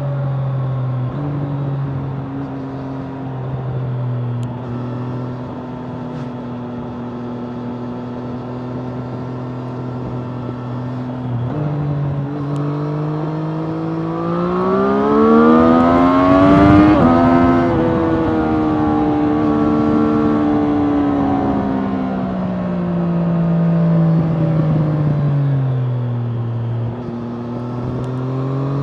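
Triumph Street Triple RS 765 cc three-cylinder engine through its stock exhaust, ridden on the road. It runs at steady revs with a few sudden steps in pitch, rises sharply and gets loudest as it accelerates about halfway through, then falls away gradually as the revs drop.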